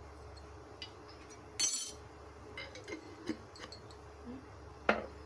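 A steel spoon and glass jars clinking and being set down on a stone countertop: scattered light clicks, a short scrape about a second and a half in, and one sharp clink near the end, the loudest sound.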